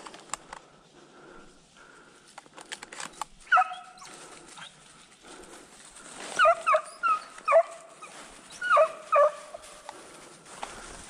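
Deer hounds baying at a distance in short bursts, starting about three and a half seconds in, the sound of the dogs giving mouth as they run a deer. A few sharp clicks come before the baying.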